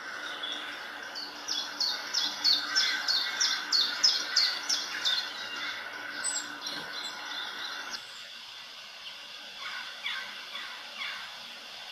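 Graphite pencil hatching on sketchbook paper: a quick run of short strokes, about three a second, for some four seconds, then a few fainter strokes near the end.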